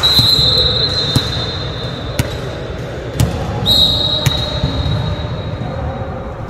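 Volleyball bounced on a gym floor, a sharp knock about once a second, before a serve. A steady high-pitched tone comes in at the start and again about halfway through, fading each time.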